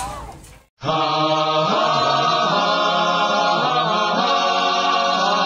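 Music of several voices holding a chant-like chord, some notes sliding between pitches, coming in about a second in after the earlier sound fades to a brief silence.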